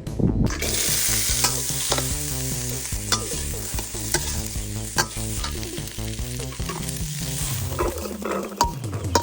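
Food frying and sizzling in a hot pan, starting about half a second in, with a spatula knocking and scraping roughly once a second as it is stirred.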